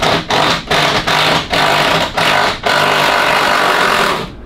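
Impact wrench firing in short bursts, about four a second, then running steadily for over a second near the end. It is backing out the last two bolts that still hold the car body to its floor pan.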